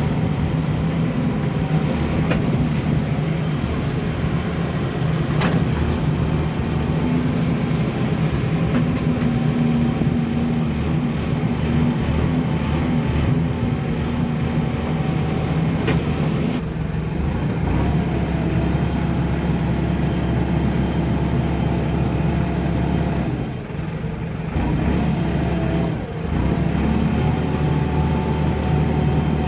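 JCB backhoe loader's diesel engine running steadily under working load. Its note changes about halfway through, and it eases off briefly twice near the end.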